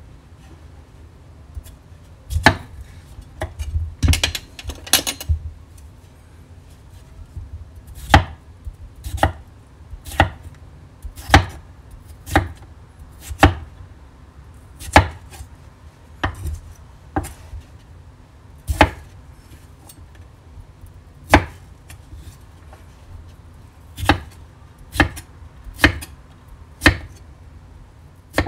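Chef's knife dicing raw potatoes on an end-grain wooden cutting board: sharp knocks of the blade striking the board, unevenly spaced at roughly one a second, with a quicker flurry of cuts about four to five seconds in.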